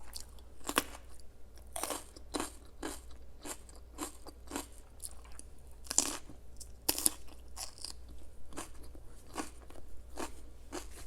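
A person chewing crunchy food close to the microphone: a run of sharp, irregular crunches, a few each second, with two louder crunches about six and seven seconds in.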